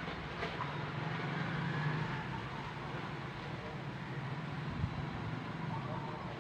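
Steady hum of distant city road traffic, with a short click about half a second in and a low thump near the five-second mark.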